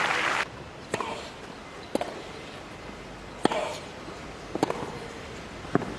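Applause cutting off about half a second in, then a tennis ball bouncing on the grass court between points: a handful of sharp knocks about a second apart, two of them in quick succession near the end.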